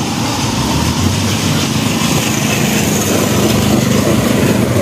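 Small motorcycle engine of a tricycle (motorcycle with sidecar) running as it draws near and passes, growing gradually louder.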